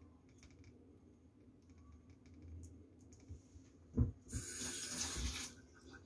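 A knock, then a kitchen tap running briefly for a little over a second, with a few soft thumps under the water.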